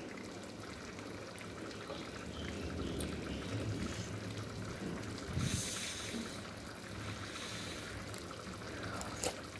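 Prawn curry in coconut-milk sauce simmering in a frying pan, a steady low bubbling, with a short louder burst of noise about halfway through.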